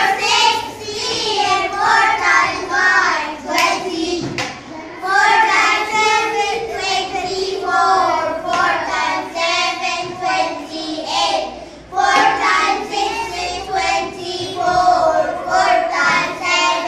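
A group of young girls singing together in unison, chanting the four times table as a song, with short breaks between lines.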